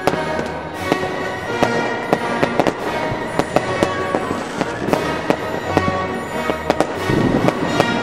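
Fireworks going off in a rapid, irregular run of sharp bangs and crackles, over music with held notes. The bangs come thicker and louder about seven seconds in.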